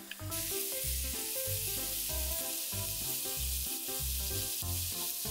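Soy-marinated pork, onion and carrot sizzling steadily as they stir-fry in a hot pan, the sizzle jumping up loud a fraction of a second in. Background music with a steady beat plays underneath.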